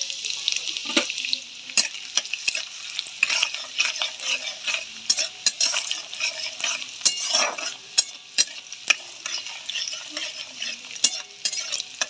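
Chopped garlic and ginger sizzling in hot oil with whole spices and a bay leaf, stirred with a spatula that scrapes and clicks against the pot many times over the steady sizzle.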